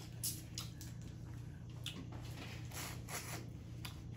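Crawfish shells being peeled and cracked apart by hand, heard as a scatter of small sharp crackles, clicks and squishes over a faint steady low hum.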